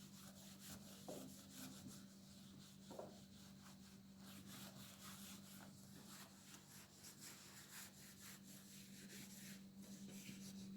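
Faint, quick scraping strokes, one after another, over a low steady hum.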